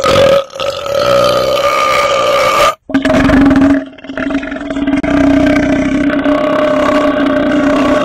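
A man's long, loud belch of nearly three seconds, then, after a brief break, a second, lower-pitched belch held on past the end, brought up after gulping carbonated soda.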